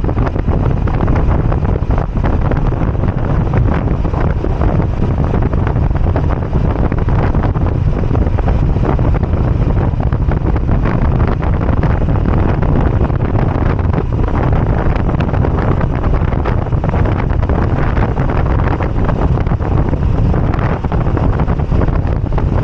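Wind buffeting the microphone on a moving Moto Guzzi V85TT motorcycle, with the bike's air-cooled V-twin running under it, steady throughout.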